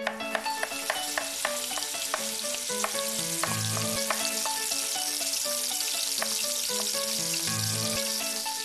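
Opening theme music, a tune of short notes over a bass line, laid over a steady sizzle of food frying in a pan.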